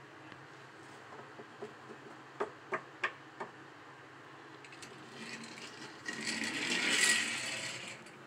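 Light clicks and taps of a toy car and figurine being handled on a wooden shelf, then a whirring rasp that swells over about three seconds, loudest near the end.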